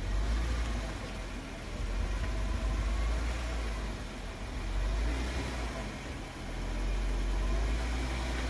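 Jeep engine running as the vehicle crawls up a rock ledge, a low rumble that swells and eases several times.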